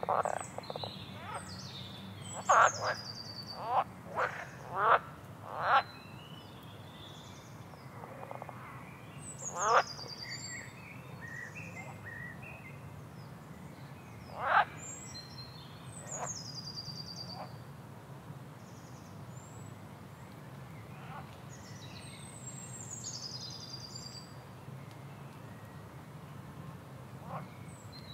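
Frogs and birds calling together. A run of short, loud frog croaks comes in the first half and grows sparse later, while birds keep up high chirps and falling whistled phrases throughout over a steady low background hum.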